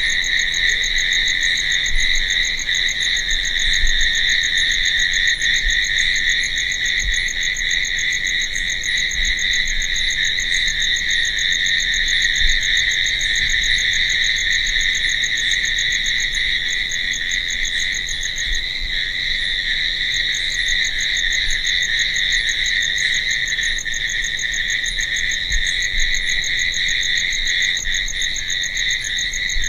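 Crickets chirping in a dense, steady night chorus, with a fainter, faster-pulsing higher trill over it that drops out briefly a little past halfway.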